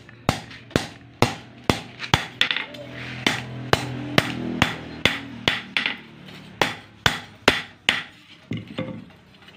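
Hand hammer forging a red-hot steel blade, cut from a motorcycle brake disc, on a steel-post anvil: sharp metal-on-metal blows at about two a second, which thin out and stop near the end.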